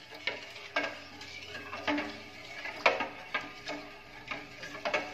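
Steel spoon stirring a thick almond-milk mixture in a stainless steel pot, scraping and knocking against the pot's sides about six times, some knocks briefly ringing.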